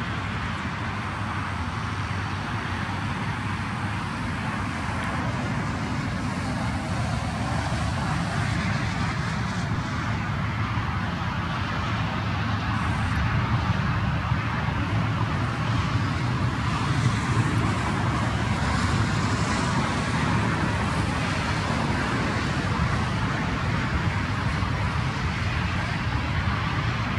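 Steady, even hiss and rumble of distant road traffic, with no distinct events.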